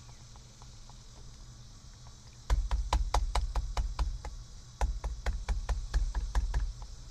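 A rapid, irregular run of sharp clicks and knocks, several a second, each with a low thump, starting about two and a half seconds in.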